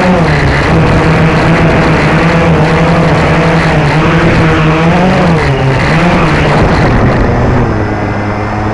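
Blade 350QX quadcopter's four brushless motors and propellers, heard close up from the drone itself: a loud steady hum whose pitch wavers up and down with the throttle as it flies low, then drops to a lower, steady hum near the end as it comes down onto gravel.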